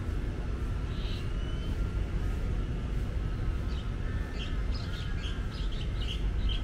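Park ambience: a steady low rumble of traffic, with small birds chirping over it, one chirp about a second in and a quick run of chirps from about three and a half seconds.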